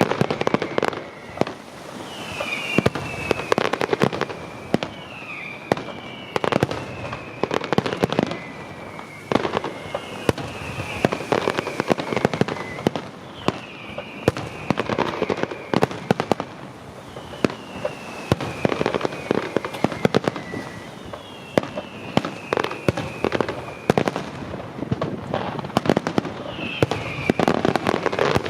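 Pyrotechnic display: a dense run of bangs and crackling bursts, overlaid by a string of shrill whistles, each sliding down in pitch and recurring every couple of seconds.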